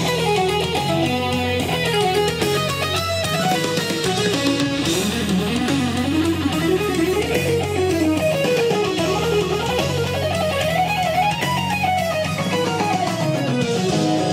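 Guitar music played back through a homemade DIY loudspeaker, with fast runs of notes that climb and fall repeatedly over a steady bass line.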